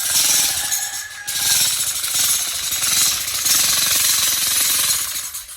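Jackhammer hammering rapidly, breaking up rock, with a short dip about a second in; it stops near the end.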